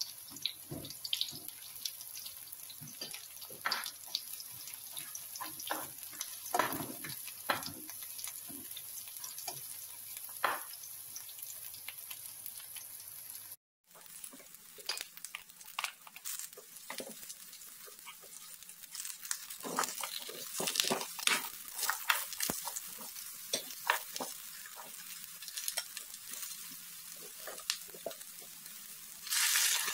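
Eggplant and diced onion frying in oil in a nonstick pan: a steady sizzle with many small crackling pops. The sound drops out for a moment about halfway, and a louder hiss sets in near the end.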